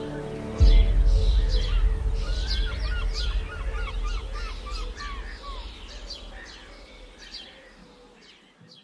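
Wild birds chirping and singing in quick, overlapping calls over a loud low rumble that starts suddenly about half a second in, then both fade out near the end.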